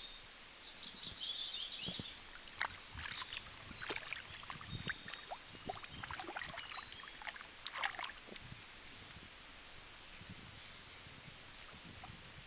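Water sloshing and splashing as a slab of raw pork is rubbed and rinsed by hand in a shallow river, over the steady rush of the stream. Birds chirp high in the background.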